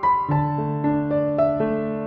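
Background music: soft electric piano playing slow notes over a sustained chord.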